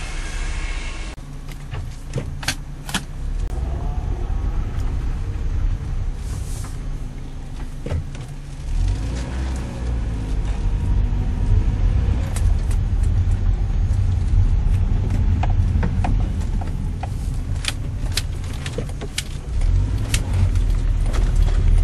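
Small manual car driving on the road, heard from inside the cabin: a steady low engine and road rumble that grows louder about nine seconds in and again near the end, with scattered sharp clicks and light jingles.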